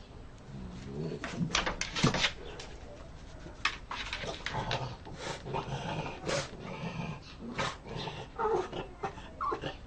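A dog's grumbling growls and whines, a series of short, uneven sounds: the dog is asking to be let in.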